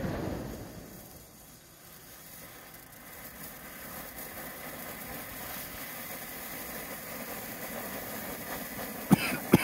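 A ground firework fountain spraying sparks with a steady hiss that builds gradually as the fountain gets going. Two sharp cracks come close together near the end.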